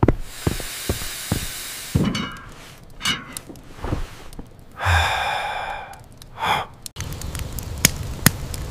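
Cartoon character's breathy sighs and gasps, with a few light knocks as a pot is set on a table. About seven seconds in this cuts to a steady outdoor hiss with sharp clicks.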